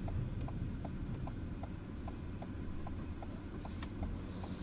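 Car turn indicator ticking steadily, about two and a half ticks a second, over the low hum of the engine and road noise inside the cabin while turning left.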